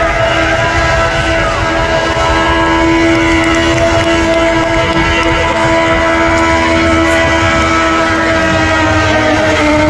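Small mascot car doing a burnout: its engine held at steady high revs while the rear tyres spin, making one loud, unbroken drone at a constant pitch over a rough rumble.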